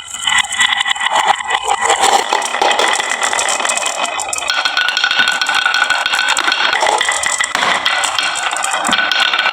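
Many marbles rolling and clattering down a wooden HABA marble run, a continuous dense rattle of small hard clicks.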